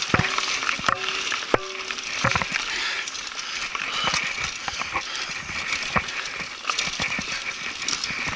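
Mountain bike rolling over a bumpy dirt trail: irregular clicks and knocks of the bike rattling over the ground, over a steady hiss of wind and tyre noise.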